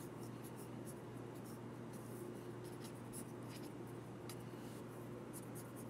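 Pencil scratching on paper in short, faint strokes as dimensions and arrows are sketched. A steady low hum runs underneath.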